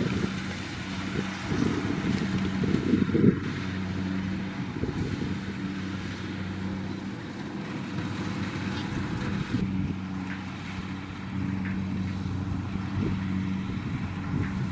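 Kubota DC70 combine harvester's diesel engine running at a steady working speed with a constant hum as the machine cuts and threshes rice.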